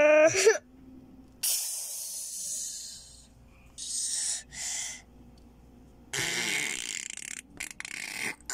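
A short, falling, hooting voice sound, then four breathy, hissing bursts, the first and last over a second long and two short ones in between, like heavy breathing or a hissed whisper.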